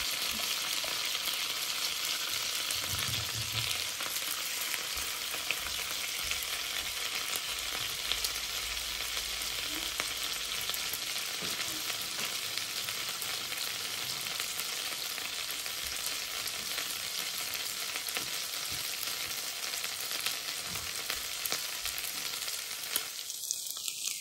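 Potato fritters with salami and cheese sizzling steadily in clarified butter in a frying pan, with small scattered crackles.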